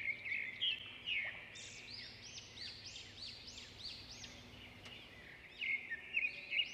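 Birds chirping: a dense, continuous run of short, high, arched chirps from several birds, a little louder just after the start and again near the end.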